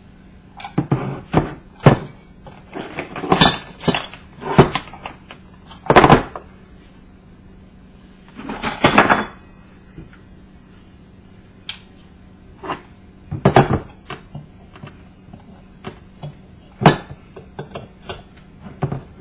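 Hand tools clanking, knocking and scraping on the metal parts of an old ceiling fan being taken apart: irregular knocks, with a longer grating scrape about nine seconds in.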